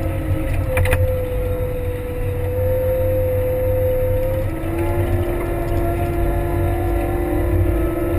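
Kramer 380 compact wheel loader's diesel engine running steadily under load while pushing a snow plow blade, a low drone with a steady whine over it. The whine's pitch steps down about halfway through, and there is a brief rattle about a second in.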